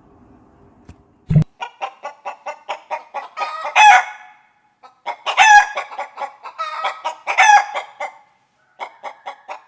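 Hens clucking in rapid runs that swell into loud, drawn-out cackles three times. A single low thump comes just before the clucking starts, about a second in.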